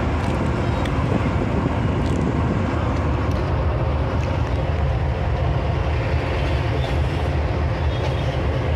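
Steady low rumble of a moving bus heard from inside the cabin: engine and tyre noise on the road, with a few faint clicks.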